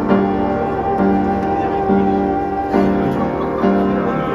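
Background music led by piano, with new notes struck about once a second.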